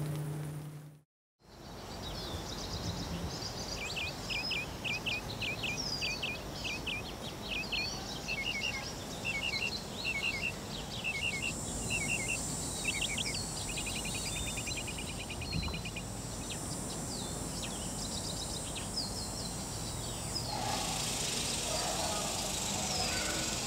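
Woodland ambience with several small birds singing: rows of short, quick chirps and a buzzy trill. A steady high hiss, like insects, comes in about halfway, after a moment of dead silence right at the start.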